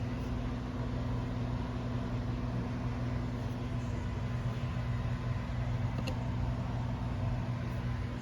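A steady low mechanical hum, with one faint click about six seconds in.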